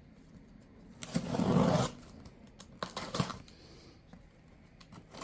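A package being torn open: a tearing scrape lasting most of a second, followed about three seconds in by a few sharp clicks of the packaging being handled.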